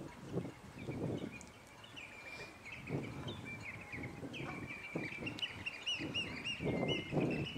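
A flock of shorebirds on a tidal mudflat calling: many short, high piping notes in quick runs, busier in the second half. Gusts of wind rumble on the microphone and are loudest near the end.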